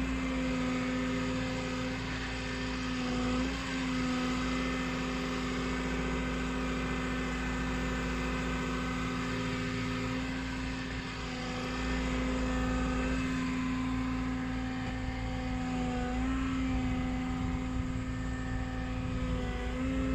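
Walking excavator's engine and hydraulics running with a steady, even hum that briefly shifts in pitch a few times.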